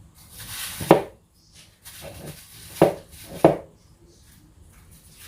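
Hands shaping cookie dough into small balls and setting them on a baking tray: light rustling and handling noise, with three sharp knocks, about one, three and three and a half seconds in.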